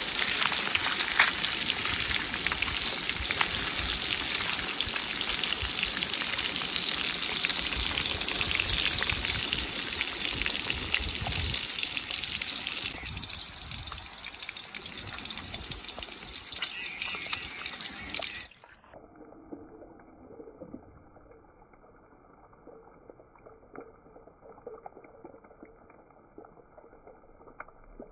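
Fish frying in hot oil: a dense, steady sizzle with fine crackling, which drops in level about 13 seconds in. It cuts off abruptly about 18 seconds in, leaving only faint, muffled background.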